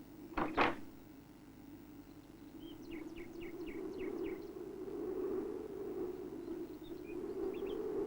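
Cartoon sound effects: a steady wind whoosh that slowly swells, with a run of about six quick bird chirps a few seconds in and a few more near the end. A short double knock, the loudest sound, comes about half a second in.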